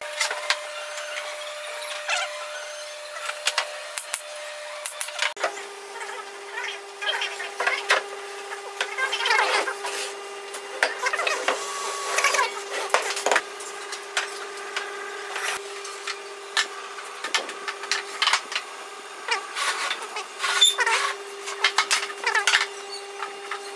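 Wooden parts of a folding chair knocking and rubbing against each other and the workbench as the frame is handled and fitted together: a run of irregular short knocks.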